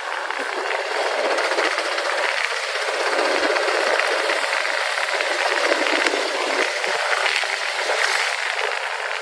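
Steady rushing noise with a light rattle, heard from a motorcycle riding through city streets.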